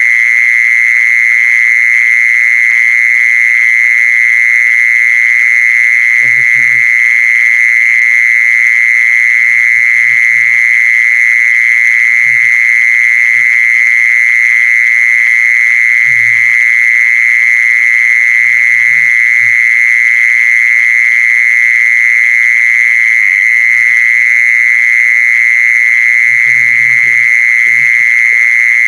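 Recorded lure call of the animal named 'khmol': one unbroken high-pitched buzzing trill, steady in pitch and loudness throughout, with faint low croaks at intervals of a few seconds.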